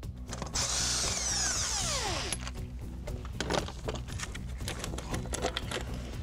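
Wheel nuts on a ten-stud truck rim being cranked off by hand with a wheel brace extension: irregular metallic clicks and rattles over background music. In the first two seconds a loud falling swishing sweep comes before the clicks.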